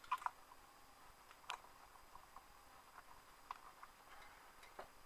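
Handling noise as a camera is picked up and repositioned: quiet, scattered small clicks and taps. Two sharp clicks come right at the start and another about a second and a half in.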